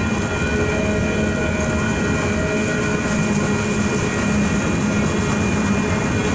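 Freight train cars rolling past at a grade crossing: a steady rumble of wheels on the rails with several steady high tones held over it.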